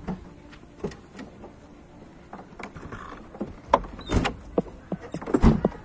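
People getting into a car: scattered knocks and rustling, with heavier thumps from the car doors about four and five and a half seconds in.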